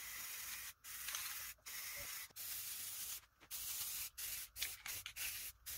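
Rust-Oleum 2X Ultra Cover aerosol spray paint can hissing in a string of bursts as wooden pieces are coated, each burst under a second with short pauses between, the bursts growing shorter and quicker near the end.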